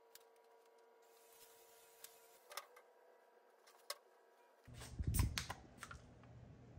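Faint steady room hum with a few light ticks, then, about five seconds in, handling noise and a quick cluster of sharp clicks from an aluminium drink can being handled at its top.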